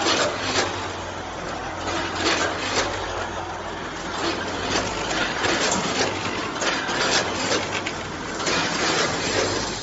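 Multihead weigher packing machine running, with shredded coconut snack rattling through its steel feeder pans and weigh hoppers in irregular clattering bursts over a steady low machine hum.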